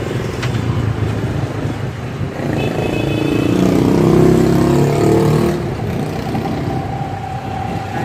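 Street traffic with a steady low rumble. A motor vehicle passes, its engine swelling to its loudest about four seconds in and then fading.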